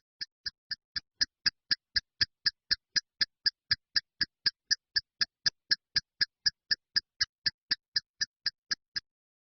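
A sound-effect track of short, evenly spaced electronic ticks, about four a second, swelling in over the first second, fading a little near the end and stopping about nine seconds in.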